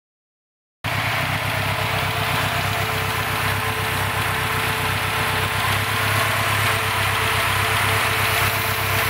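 Turbocharged Mitsubishi DOHC 16-valve four-cylinder engine with a newly fitted Holset HX40 turbo idling steadily, cutting in abruptly about a second in. It is on its first run and idling a little rich.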